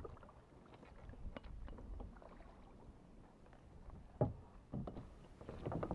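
Kayak paddle dipping and pulling through the water in short strokes, with small splashes and knocks against the kayak; one sharper knock about four seconds in.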